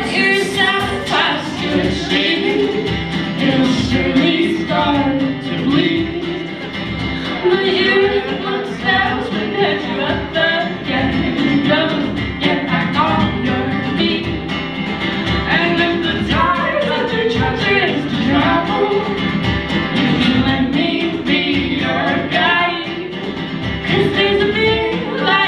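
Live acoustic band performing: several voices singing together over an acoustic guitar, with a cajon keeping the beat.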